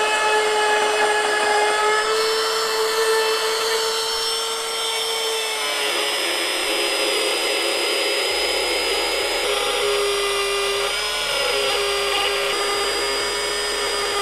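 Cordless trim router with a flush-trim bit running at a high, steady whine while it cuts a shallow circular groove, about a quarter inch deep, into MDF. Its pitch dips slightly about six seconds in and again about ten seconds in as the bit takes load.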